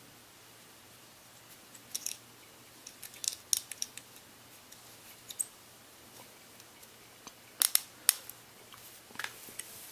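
Scattered sharp, light metallic clicks and ticks: an Allen wrench working the recessed set screws of an AR-15 drop-in trigger housing, the key clicking as it is seated and turned. The clicks come singly and in small clusters, the loudest a quick pair a little before the end.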